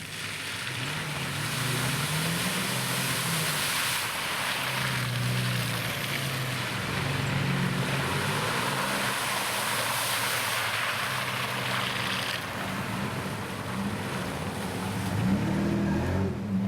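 A Nissan 4x4's engine revs up and down under load while driving off-road, with a loud rushing, spraying noise, typical of tyres throwing water and mud through a puddle, that fades after about twelve seconds.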